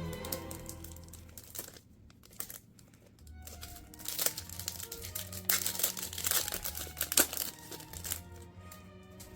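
Wrapper of a Match Attax trading card pack crinkling and tearing as it is opened, loudest in the middle, over background music.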